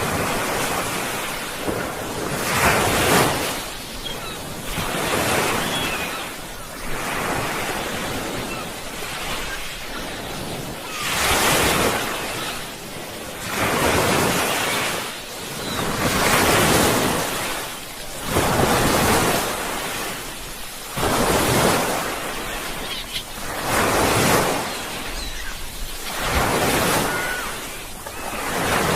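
Sea waves breaking and washing in, one surge of surf every two to three seconds.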